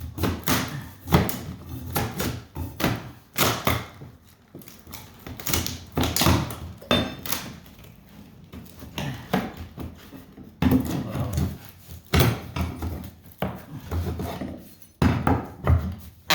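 Irregular wooden knocks and thuds with some rubbing and scraping, from hardwood floor boards and the wooden subfloor being worked on.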